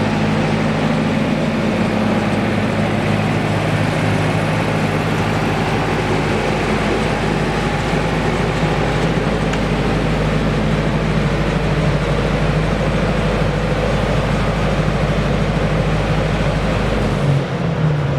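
Four-cylinder diesel engine of a 68 kVA Cummins generator set running steadily. Near the end its low rumble cuts out and its pitch sinks as it shuts down.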